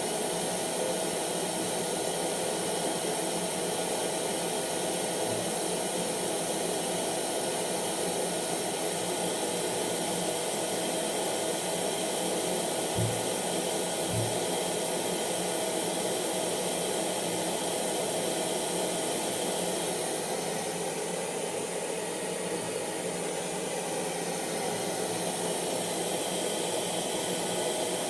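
Hair dryer running steadily: an even rushing blow of air with a steady motor whine. There are two brief low bumps about halfway through.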